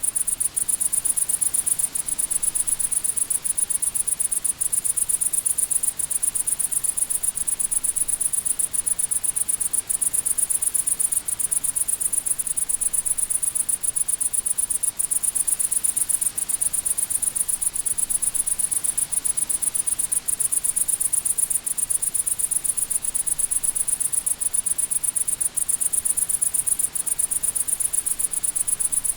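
Crickets chirping in a steady, rapid, high-pitched pulse.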